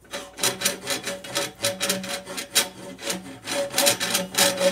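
A steel rasp scraping inside a metal organ pipe as the pipe is turned around it by hand, in quick repeated strokes of about three a second. The rasp is filing solder drips off the inside of the pipe.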